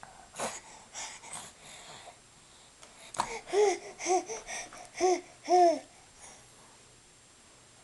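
A baby vocalizing: a few short breathy huffs, then four short coos, each rising and falling in pitch, which are the loudest sounds.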